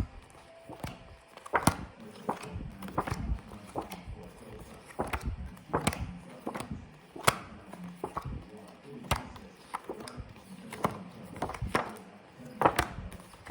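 Phonics flashcards being flipped one after another in quick succession, a short sharp tap or flick roughly every half second to second, over a faint low hum.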